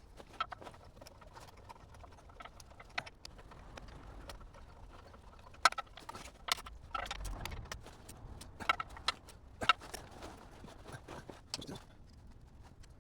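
Metal tools and starter parts clinking and knocking in irregular sharp clicks as a replacement gear-reduction starter motor is bolted onto an LS V8, busiest in the middle of the stretch.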